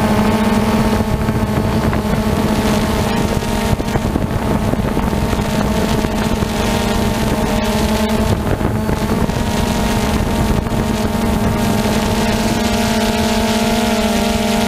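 DJI Phantom 2 quadcopter's motors and propellers humming steadily in flight, a constant drone-like buzz heard from the camera mounted on board.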